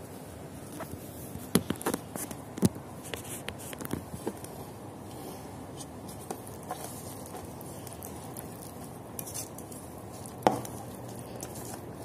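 Hands working minced garlic in an oil marinade in an enamel basin, with scattered sharp clicks and knocks against the basin, busiest in the first few seconds and with one louder knock near the end, over a steady background hiss.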